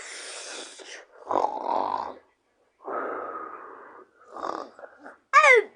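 A person snoring: four raspy breaths, each about a second long with short pauses between them, followed near the end by a brief falling whistle.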